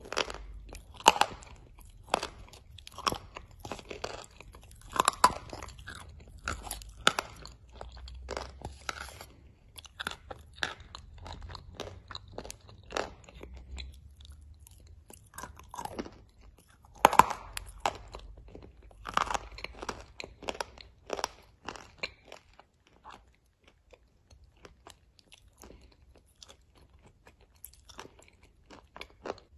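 Chewing and crunching a mouthful of thick clay-and-chalk paste, with irregular sharp crunches that thin out over the last few seconds.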